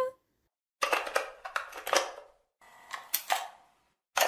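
A held sung note from a woman's voice ends, then two short clusters of clicks and taps follow with a gap between them. A steady hiss starts near the end.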